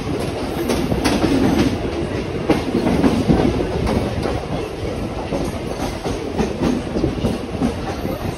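Mumbai suburban local electric train running at speed, heard from an open coach doorway: a steady rumble with the clickety-clack of wheels over rail joints and points.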